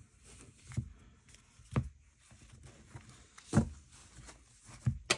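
Tarot cards being gathered up and set down by hand: a handful of light taps with faint card rustling between them.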